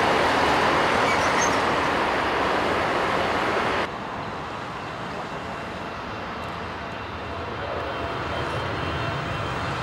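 Jet engine noise of a Boeing 747-8 freighter rolling out just after touchdown, a loud even rush that cuts off suddenly about four seconds in. It gives way to the quieter, steady jet noise of a Boeing 777-300ER on final approach, with a faint whine, slowly growing louder as it nears.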